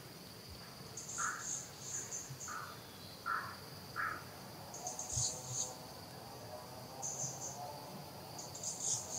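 Outdoor insect chorus: a steady high buzz with clusters of shrill chirps every second or two, and four short lower calls in the first half.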